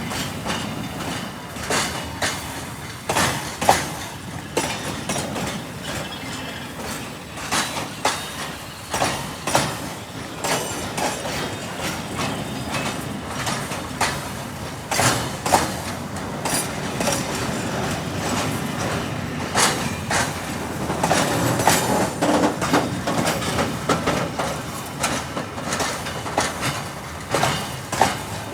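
Train wheels rolling over the rails: a steady rumble with irregular sharp clicks and knocks as the wheels pass rail joints.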